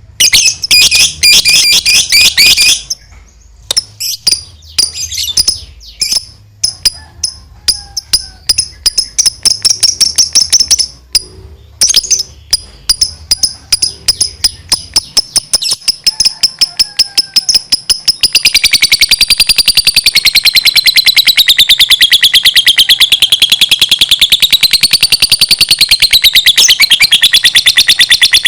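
Lovebird singing: first bursts of shrill chirping, then a long run of rapid separate chips. About two-thirds of the way in, these turn into an unbroken, very fast chattering trill that wavers up and down in pitch: the drawn-out 'ngekek panjang' song.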